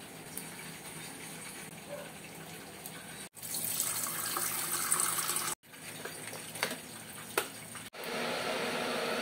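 Water poured into a stainless-steel electric kettle, a steady splashing pour lasting about two seconds that starts and stops abruptly. It sits between quieter stretches of handling noise with a couple of clicks, and a steady hiss near the end.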